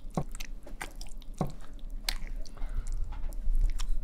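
Hand masher pounding and squishing stewed lamb, potatoes and beans into a paste: wet squelching, with two heavier thumps in the first second and a half.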